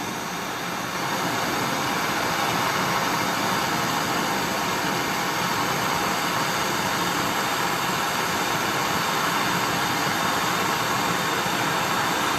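Handheld gas torch burning with a steady, even hiss, its flame heating a twisted copper wire to anneal the work-hardened metal. The flame noise grows a little louder in the first second or two, then holds steady.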